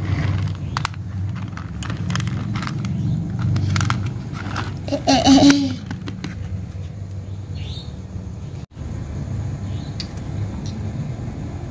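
Glass marbles clicking against one another and against the plastic bed of a toy dump truck as a hand scoops them, then plastic toy trucks being handled, over a steady low rumble. A brief voice-like sound comes about five seconds in.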